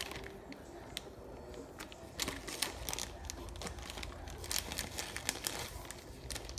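Crinkling and light clicking as slices of pepper jack cheese are handled and laid on burger patties, thicker from about two seconds in.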